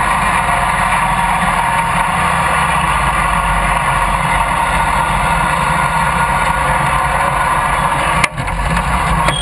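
Riding lawn mower's small engine running steadily as the mower drives across a grassy field. The sound briefly dips about eight seconds in.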